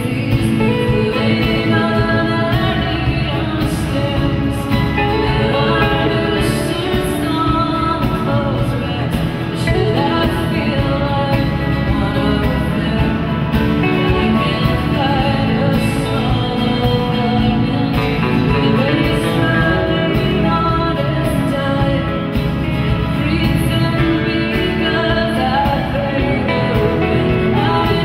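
A woman singing a folk song live, accompanied by her own strummed acoustic guitar and a band.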